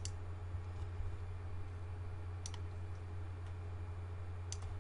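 A few computer mouse clicks: a quick double click at the start, a single click about halfway through and another double click near the end. They sound over a steady low hum.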